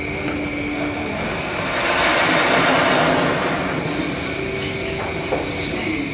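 Ground firework burning on pavement and spraying sparks with a steady rushing hiss that swells louder for a second or so partway through, then settles back.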